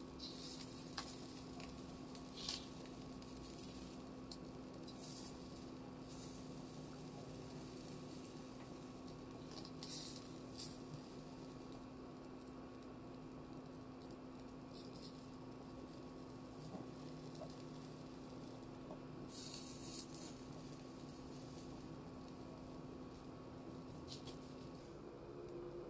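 Chicken satay skewers sizzling on a hot grill, with short spitting crackles every few seconds, the loudest about ten and twenty seconds in, over a steady low hum that stops near the end.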